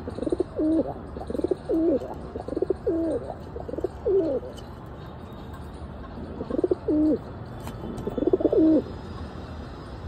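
Rock pigeons cooing: four coos about a second apart, a pause of about two seconds, then two more.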